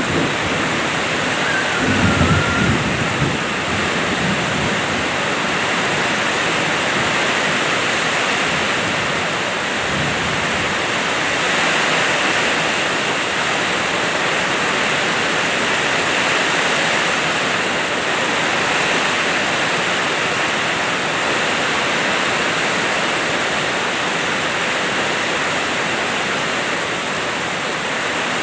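Heavy rain pouring down steadily, a dense even hiss, with a short low rumble of thunder about two seconds in.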